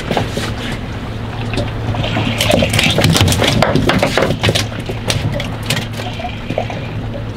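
Water sloshing and slapping against a boat's hull at sea, busiest in the middle, over a steady low hum.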